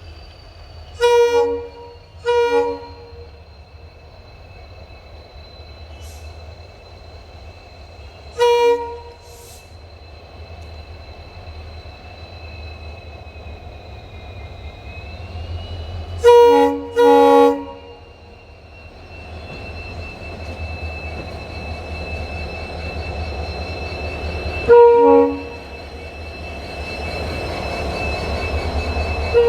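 Twin WDG4 diesel locomotives running with a steady low engine hum and a thin high whine, their horn sounding in six short blasts: a pair, a single, a pair and a single. From about two-thirds of the way in, a rumble grows steadily louder as the train comes closer.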